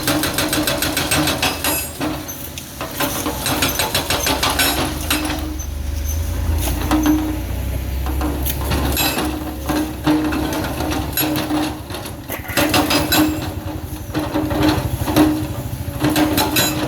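Diesel engine of a heavy earthmoving machine running under load, with clusters of metallic clanking, rattling and scraping from its steel bucket working rock and soil. A deeper engine rumble swells around the middle.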